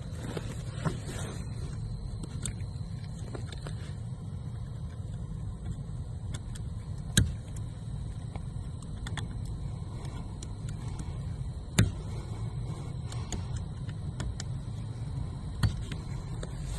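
Sharp plastic clicks of a fuse puller working a 15-amp blade fuse out of a car's interior fuse box, a handful over the stretch with the loudest about seven and twelve seconds in, over a steady low hum.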